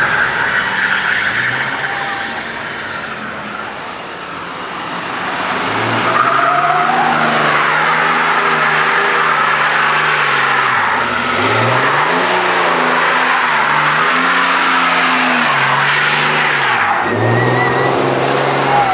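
Dodge Ram pickup doing a burnout: the engine is held at high revs while the spinning tyres hiss and squeal on the asphalt. The revs dip and climb again twice, about 11 and 17 seconds in. In the first few seconds the sound of another truck driving off fades.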